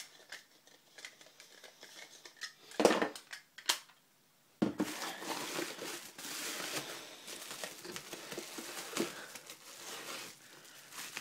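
Rustling and crinkling of bubble-wrap and cardboard packaging as a camera is pulled out of its box, the rustle starting about halfway through after a couple of sharp clicks.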